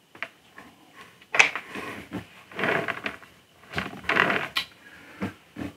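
Resin model-kit parts being handled and fitted together by hand: a sharp click about a second and a half in, then several short bursts of rubbing and clattering, and two small knocks near the end.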